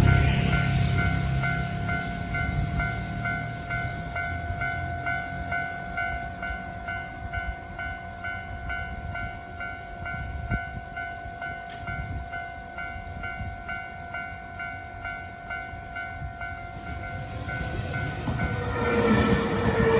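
Japanese level-crossing warning bell ringing in steady, evenly repeated electronic dings while trains pass on the Nankai Main Line. A train's rumble is loud at the start and fades over the first few seconds. A second train's wheel noise rises near the end.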